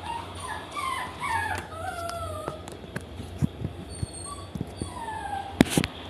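Dog whining in a string of high whimpers that slide down in pitch. A few sharp knocks come in the second half, the loudest shortly before the end.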